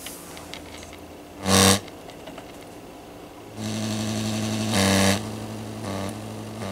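Montgomery Ward Airline tube radio's speaker giving out a harsh buzz over a low hum: a short loud blast about a second and a half in, then from about halfway a steady buzz with louder surges. It is the radio's fault noise, which rises and falls with the volume control.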